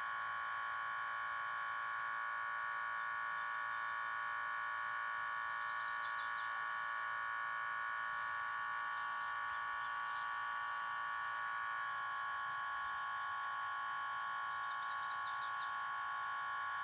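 Steady electrical whine of several held high tones, as from the load drawing about 8 amps from the battery pack under discharge. A faint regular ticking about three times a second, with a few short high chirps about six, nine and fifteen seconds in.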